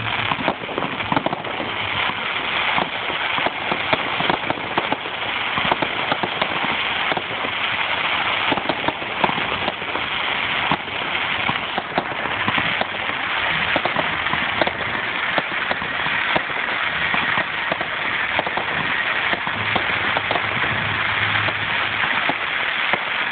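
Fireworks crackling: a dense, continuous stream of rapid small pops and crackles.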